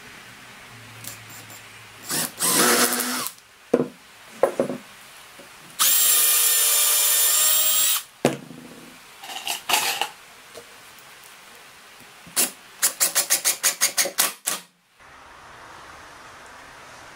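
Small cordless drill-driver driving screws into a pine bed-frame rail: several short runs of the motor, one steady whine of about two seconds, then a fast string of about eight short trigger pulses near the end.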